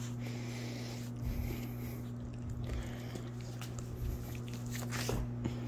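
Steady low electrical hum, with faint soft handling thumps and small mouth and snuffling noises from a pit bull as its face is rubbed; the thumps come about a second in and again near the end.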